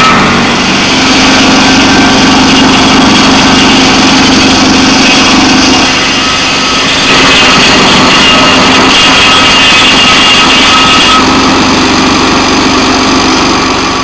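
Portable circular-blade sawmill's engine running steadily at speed, the large saw blade spinning, with a slight dip in loudness about six seconds in.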